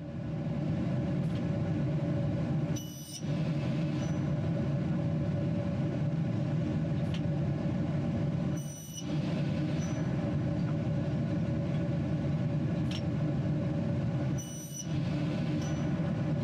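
Aluminium-cutting circular saw with a 420 mm blade running steadily. Three times, about every six seconds, the noise dips briefly with a sharp click, as the profile clamps cycle between cuts.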